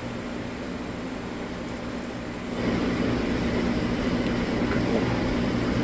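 Steady electric motor hum from a machine running beside the panning tub. It steps up in level about two and a half seconds in.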